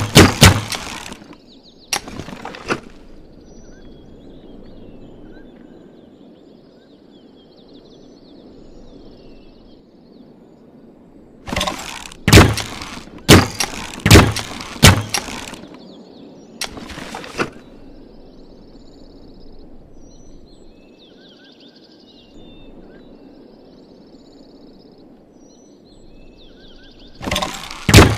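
Bamboo repeating crossbow being worked, making groups of sharp wooden clacks and snaps as it is cycled and shot. The groups come in short bursts: one at the start, one about 2 seconds in, a longer run around the middle, a short one a little later, and one near the end, with quiet stretches between.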